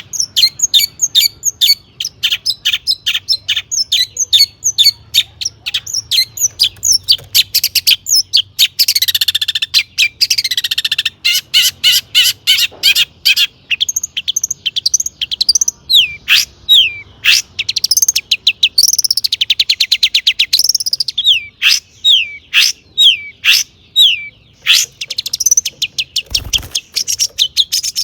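Long-tailed shrike (cendet) singing a fast, near-continuous stream of sharp chirps and downward-sweeping whistles, woven with mimicked calls of other birds, with a buzzy rattling phrase about nine to eleven seconds in. A brief dull thud sounds near the end.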